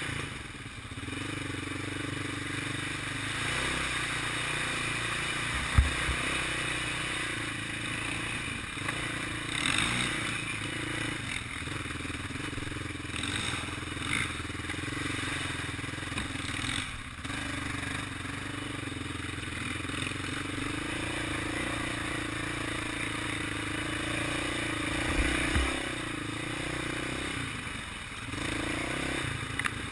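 Sport ATV's single-cylinder four-stroke engine running under fairly steady throttle on a dirt trail, with the quad rattling over the ground and two sharp low thumps from bumps, about six seconds in and again near the end.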